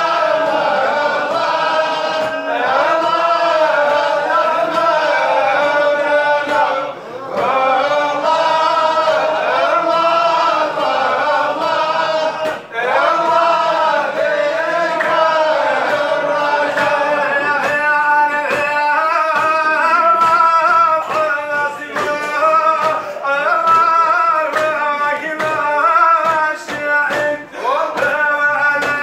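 A group of men singing a Sufi devotional chant together, one melody with long held, gliding notes. A regular beat comes in during the second half.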